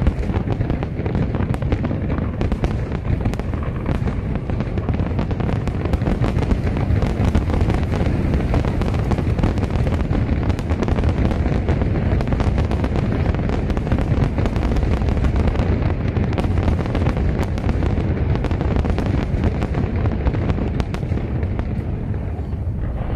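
Fireworks display: a dense barrage of aerial shells bursting in rapid succession, blending into a continuous rumble with crackling over it. The barrage thins a little near the end.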